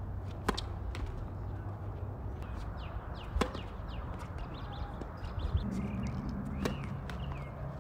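Tennis racquet striking the ball on serve: three sharp pops a few seconds apart, the middle one the loudest. Short high chirps come between the hits.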